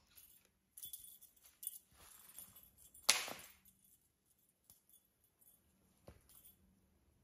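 Cat moving under a felt play mat: irregular rustling and scraping of the felt, loudest about three seconds in, with another short scrape about six seconds in.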